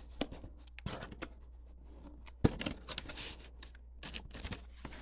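Packaging being handled inside an opened cardboard printer box: irregular rustles, scrapes and light clicks of styrofoam and plastic, with one sharper knock about halfway through.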